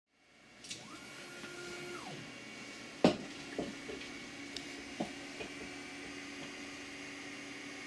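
A large 3D printer with a Bondtech BMG extruder running through an extreme retraction test: steady stepper-motor whine, one motor move that rises in pitch, holds and falls about a second in, and a scatter of sharp clicks and knocks, the loudest about three seconds in.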